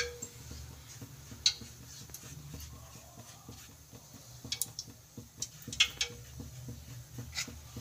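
Faint soft dabbing of a silicone brush spreading oil over rolled dough on a wooden rolling board, with a few sharp light clicks scattered through it.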